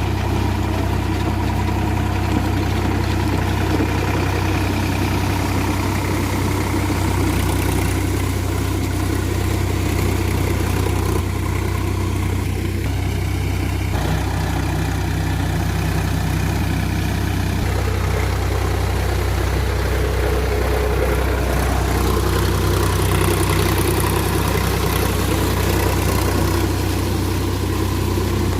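Sonalika DI-47 RX tractor's diesel engine running steadily while driving a Shaktiman rotavator.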